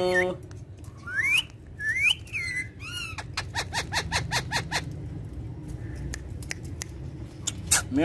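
Indian ringneck parakeet calling: a few short rising whistles, then a quick run of clicks lasting about a second and a half, before it goes quieter.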